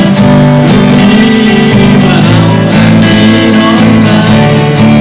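Acoustic guitar strummed in a steady rhythm, chords ringing on.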